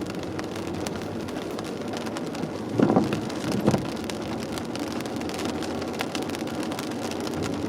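Rain on a moving car, a steady patter and tyre hiss, with the windshield wipers making one sweep out and back about three seconds in.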